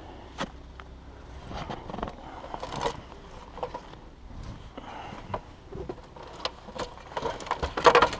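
Irregular knocks, scrapes and crunching as someone clambers up onto a snow-covered roof, with a louder flurry of noise near the end.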